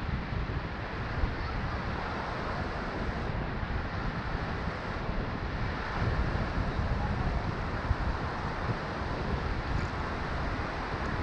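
Low surf breaking and washing up a flat sandy beach, a steady wash of water, with wind rumbling on the microphone.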